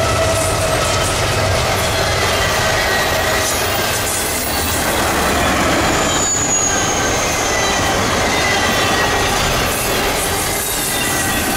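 CSX intermodal freight train passing close by. The trailing diesel locomotive's low rumble fades over the first few seconds, then the stack and trailer cars roll past with steady wheel-on-rail noise and drawn-out squealing tones from the wheels.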